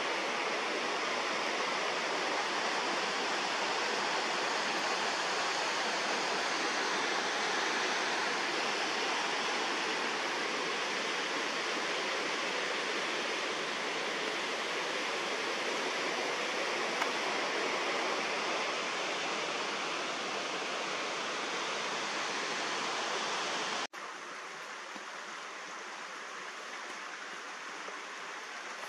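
Steady rushing of a mountain creek, an even wash of water noise. Near the end it drops suddenly to a quieter rush.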